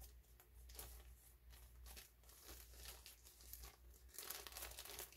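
Faint crinkling and rustling of a bag as yarn cakes are handled, growing a little louder about four seconds in.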